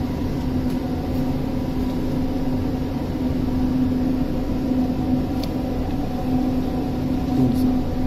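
Steady machinery hum of a ship, a low rumble with a constant droning tone, and two faint clicks in the second half.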